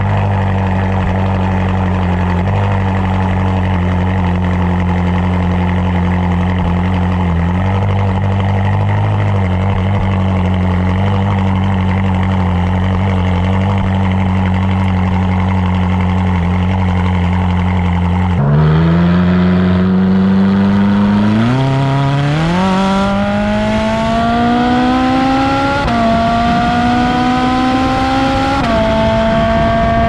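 Ferrari 458 Spider's 4.5-litre naturally aspirated V8 idling steadily through the open exhaust valves after a cold start. About two-thirds of the way in, the sound changes to the car pulling away on the road, the exhaust note rising in pitch through the gears and dropping at each upshift.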